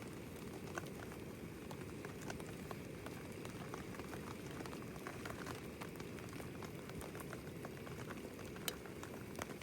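A pot of frogs and tomatoes bubbling steadily at a boil over a campfire, with scattered light ticks of rain falling.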